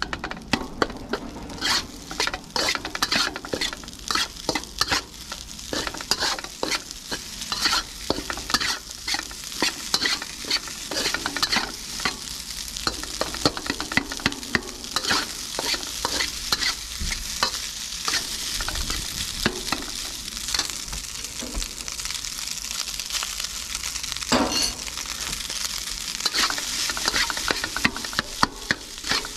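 Fried rice sizzling in a hot wok while it is stirred and tossed, the utensil scraping and tapping against the wok in quick, irregular strokes over a steady sizzle. One louder knock on the wok comes near the end.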